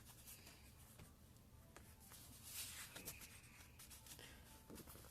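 Near silence with faint rustling and light taps of paper cards being handled and laid in place.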